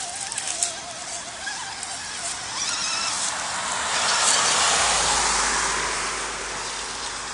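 Exceed RC MaxStone electric rock crawler driving: its motor and gears whine with a wavering pitch, then a broad rush of noise swells, loudest about four to five seconds in, and fades again.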